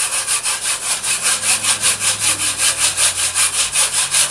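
Hand saw cutting through a piece of hickory in quick, even back-and-forth strokes, about four to five a second.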